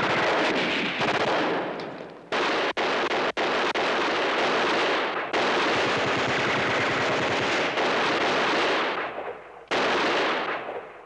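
Rapid, continuous gunfire from a TV war-film battle scene, a dense stream of shots. It breaks off abruptly several times where the soundtrack is cut and fades away near the end.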